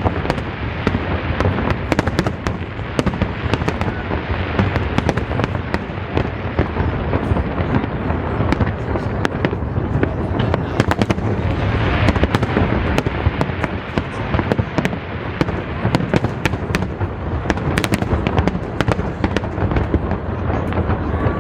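Fireworks display going off continuously: a steady rumble of shell bursts overlaid with dense, rapid crackling, with crowd chatter underneath.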